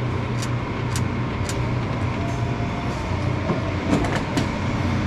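A steady low motor hum, with several sharp clicks near the start and a few more about four seconds in.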